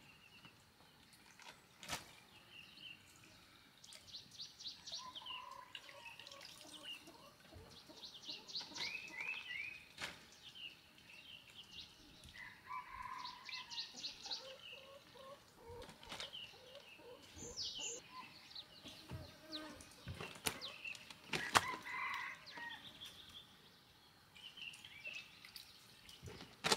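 Birds chirping and trilling outdoors, faint, with a few sharp knocks and clicks, the loudest a little past two-thirds of the way through.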